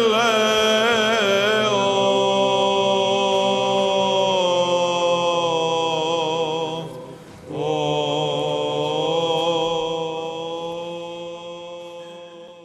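Greek Orthodox Byzantine chant: a sung line with ornamented, wavering notes over a steady low held drone, the ison. The singing breaks off briefly about seven seconds in, resumes, and fades out near the end.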